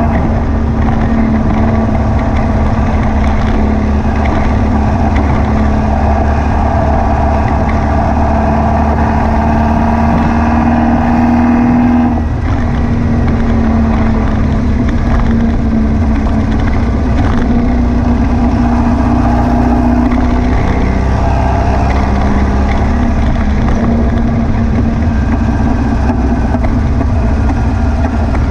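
VW beach buggy's air-cooled flat-four engine driving on the road, still carrying the misfire that new plugs, leads and rotor arm did not cure. The engine note climbs over the first dozen seconds, breaks briefly about twelve seconds in, then runs on fairly steadily with another shift about twenty seconds in.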